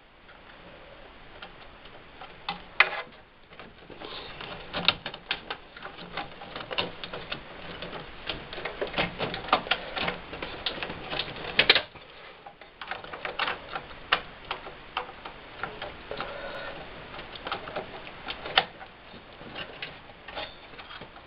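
Irregular plastic clicks and rattles of a memory stick being worked out of one slot of a Dell desktop and pushed into another, with the slot's retaining clips snapping.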